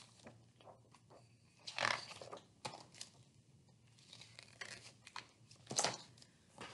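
Pages of a hardcover picture book being turned and handled: faint paper rustles and swishes, the louder ones about two seconds in and near the end.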